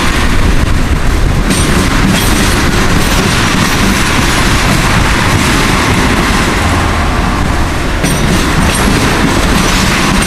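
Loaded ethanol tank cars of a freight train rolling past, a steady loud rumble with wheels clattering over a rail diamond crossing.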